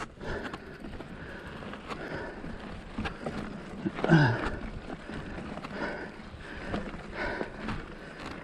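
A mountain biker breathing hard in repeated heavy exhales about once a second, mixed with the crunch and rattle of the bike rolling over a rocky dirt trail. About four seconds in, one loud voiced grunt drops in pitch.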